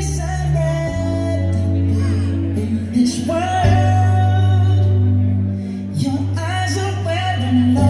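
Music with singing over a deep, held bass line, played loud through a large PA sound system.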